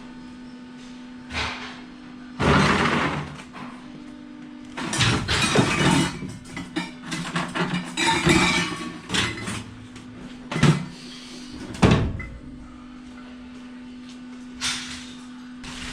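Several loud bursts of clattering and knocking, doors and loose metal being handled, over a steady low hum, with two sharp single knocks near the end.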